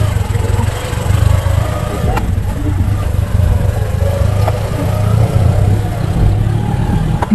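Motorcycle running while being ridden, under a heavy, unsteady low rumble.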